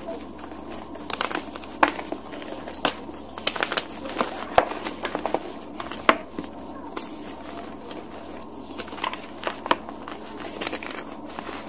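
Dyed gym chalk blocks crushed and crumbled by hand, with irregular crisp crunches and crackles. They come thick in the first half, thin out in the middle and return a few times near the end.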